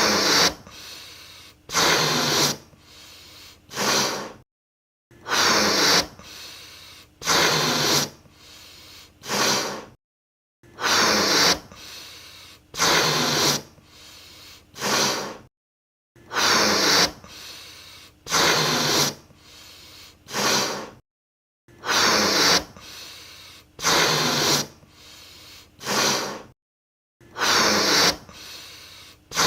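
A balloon being blown up by mouth: three hard puffs of breath into it about two seconds apart, with quieter breathing between. The sequence stops briefly and repeats about every five and a half seconds.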